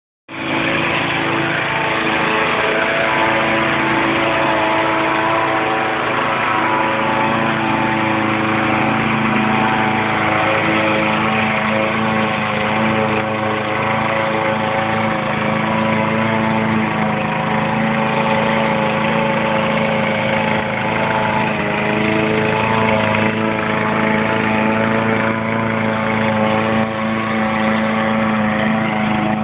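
Petrol walk-behind rotary lawn mower running at a steady engine speed while it is pushed across the grass.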